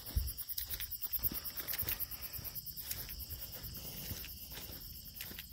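Field insects chirping in a steady, high, rapidly pulsing chorus, with soft footsteps through grass that fade out in the second half.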